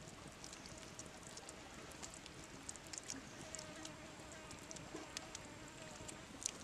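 Faint, soft wet clicks of hands pressing a chopped filling into a raw skinned frog, scattered throughout with a sharper click near the end, over a faint insect buzz.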